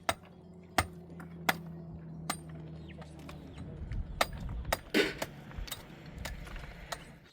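A series of sharp clinks and knocks of hard objects, about seven, spaced irregularly, over a steady low hum that gives way to a low rumble about three seconds in.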